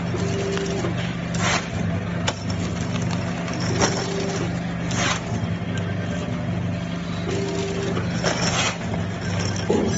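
Snack-chip packing machine running with a steady hum, a short tone repeating about every three and a half seconds, and brief hisses between. Sealed plastic bags crinkle as they are handled.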